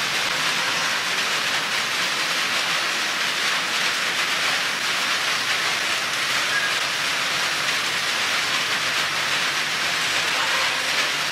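Rain falling steadily on a tin roof, an even hiss with no breaks.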